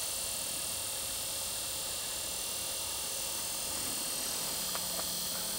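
Steady high-pitched hiss with a faint low hum underneath, and a few faint ticks about five seconds in.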